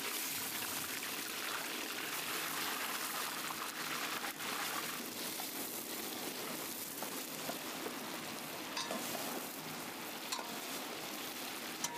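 Mutton pieces frying in hot oil in a large cooking pot: a steady sizzle, with a few faint ticks.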